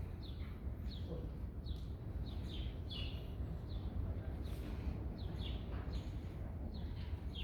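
Birds chirping: a series of short, quick downward chirps repeating about once or twice a second, over a steady low rumble.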